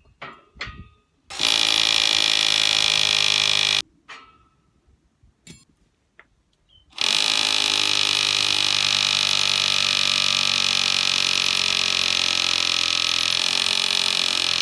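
A battery-powered electric tool's motor running at a steady pitch in two runs, one of about two and a half seconds and then a longer one of about eight seconds, each cutting off sharply, with a few clicks and knocks before and between them.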